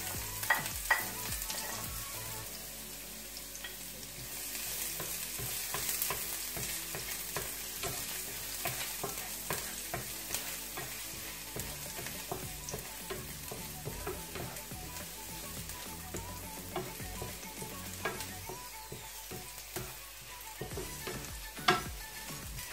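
Chopped garlic sizzling in hot oil in a frying pan, stirred with a wooden spatula that scrapes and clicks against the pan. A few sharper knocks, the loudest near the end.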